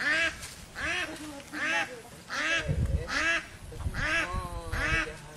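An animal calling over and over, short calls evenly spaced about one every 0.8 seconds.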